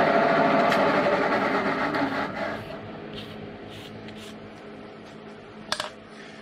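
Milling machine spindle running, then winding down over about a second after switch-off, leaving a low hum. A brush sweeps metal chips off the vise with a few short scrapes, and there is one sharp click near the end.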